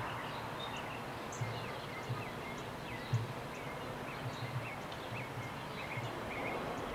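Steady outdoor hiss with small birds chirping now and then, and a few soft knocks as wood blocks are handled.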